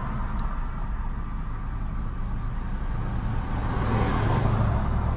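A car driving, heard from inside the cabin: steady low engine and road rumble that grows louder in the second half.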